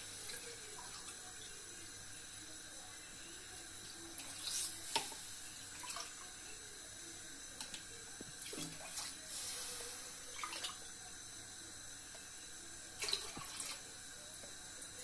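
Kitchen tap running as water is measured out for sugar syrup, with a few brief clinks and knocks scattered through.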